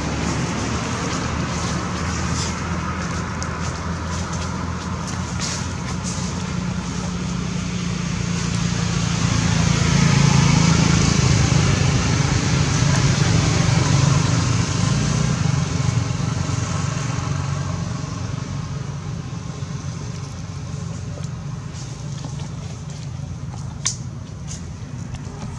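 A steady low engine drone, like a motor vehicle running some way off, grows louder around the middle and then fades, over a constant high hiss. There is a single sharp click near the end.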